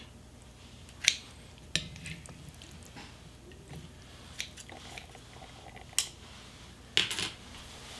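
Steel kitchen scissors snipping through soft braised kimchi and pork belly on a plate, with metal tongs handling the pieces: a handful of sharp, irregular clicks several seconds apart, the loudest double click near the end.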